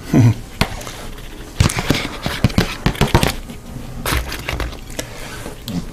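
A fork cutting into crisp air-fried pierogies on a plate: irregular crunching and crackling with sharp clicks of the fork on the plate, busiest from about a second and a half in and again around four seconds.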